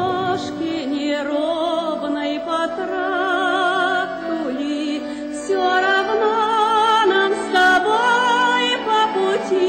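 A song playing: a singing voice holding long notes with wide vibrato over instrumental accompaniment, a little louder from about halfway through.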